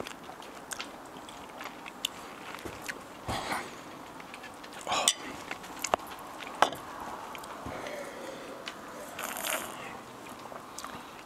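A man chewing a mouthful of pork chili verde, with scattered clicks and knocks from a spoon and bowl; the loudest knock comes about six and a half seconds in, as the bowl is set down on the table.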